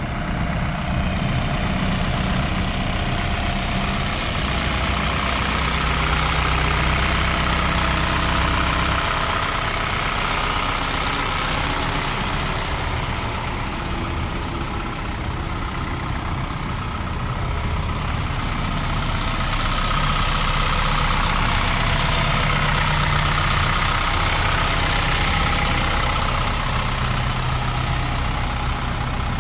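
2014 Isuzu NPR HD truck engine idling steadily, heard with the cab tilted forward so the engine is open to the air.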